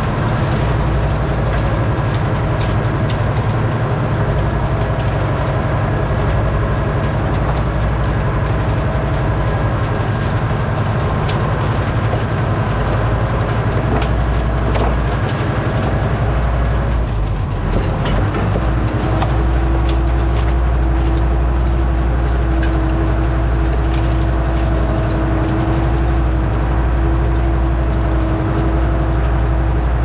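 Deutz DX90 tractor's air-cooled six-cylinder diesel running steadily under load, driving a PTO flail mulcher through grass, with scattered light ticks. About two-thirds of the way through the sound briefly changes and a steadier hum comes up.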